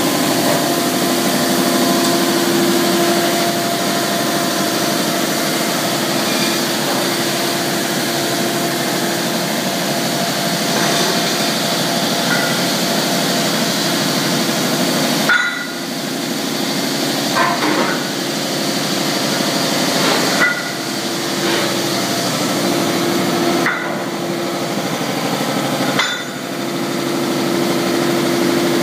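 Paul Ernst Pluto L deburring machine running steadily with a hum as 40 mm steel plates pass through it. In the second half, heavy steel plates clank against metal about five times, a few seconds apart.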